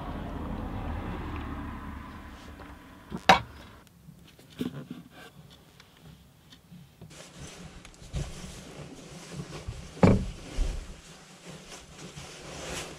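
A low rumble that fades over the first few seconds and a single sharp click. Then a sleeping bag rustles and the hammock and vehicle body give soft thumps as a person climbs into a hammock bed inside the Land Rover's rear.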